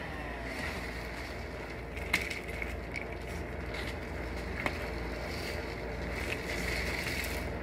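Vacuum cleaner hose being handled and shaken while it is checked for a clog that is cutting its suction, with a few sharp knocks, about two seconds in and again near five seconds, over a steady low hum.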